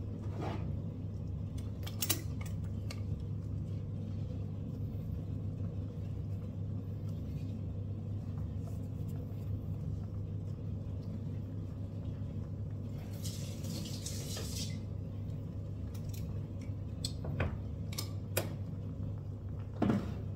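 Steady low hum, with a few light clicks and knocks from kitchenware being handled, and a brief hiss about thirteen seconds in.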